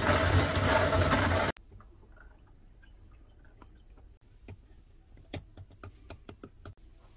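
A loud steady noise with a low hum cuts off suddenly about one and a half seconds in. Then comes quiet pouring of water into the base of an aluminium moka pot, followed by a run of light clicks and taps as ground coffee is put into the pot.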